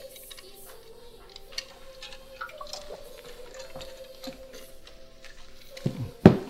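Quiet background music with a long held note and faint small clicks. Near the end, two quick knocks, the second much louder, as a bottle is set down on a side table.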